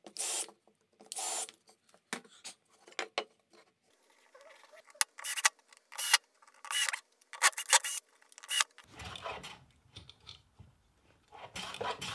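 A cordless drill driving screws into hardwood in a series of short bursts. For the last few seconds, a wood rasp scrapes along a board's edge in continuous strokes, rounding the corners.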